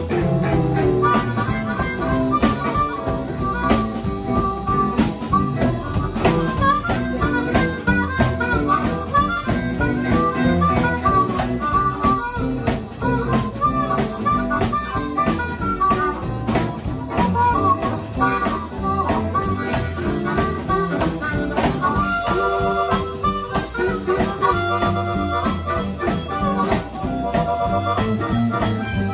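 Amplified blues harmonica soloing, cupped against a handheld microphone, over electric guitar and drums in a live blues band.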